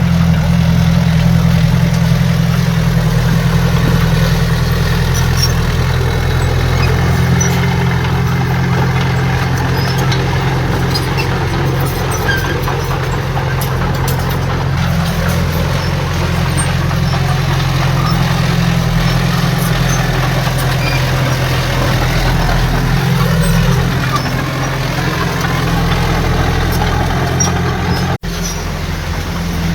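Heavy diesel engine of earthmoving machinery running steadily with a low drone. The sound drops out for an instant near the end.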